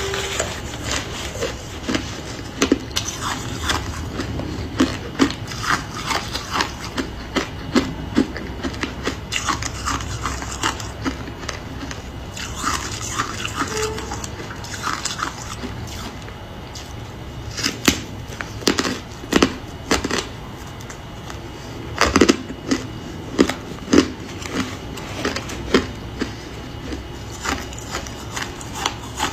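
A person biting and chewing ice close to the microphone: an irregular, rapid run of sharp crunches, with a few louder bites in the second half.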